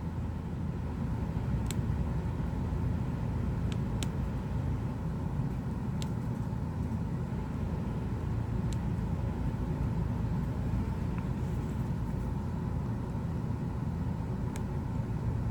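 Steady low background rumble, with a few faint, sharp clicks scattered through it.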